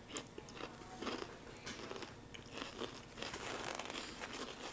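Crunchy fruit-punch-flavoured pickle slices being bitten into and chewed by two people, with irregular crisp crunches.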